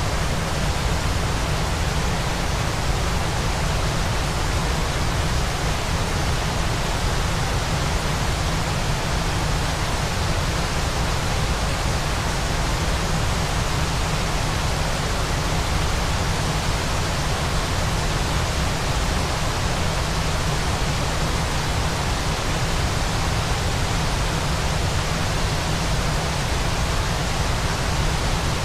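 Waterfall: a steady, unbroken rush of falling water that does not change over the whole stretch.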